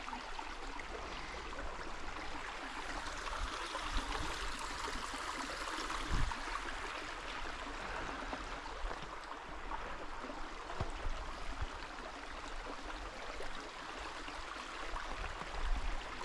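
Small seasonal stream flowing steadily, with a brief low thump about six seconds in.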